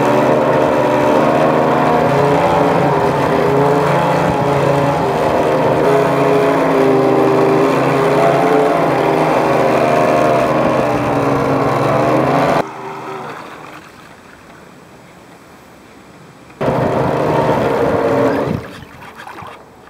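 Onboard sound of a model speedboat's Speed 700 brushed electric motor running hard with a steady whine that wavers a little in pitch, with water rushing against the hull. The motor cuts off about 12–13 seconds in, then runs again for under two seconds about four seconds later before dying away.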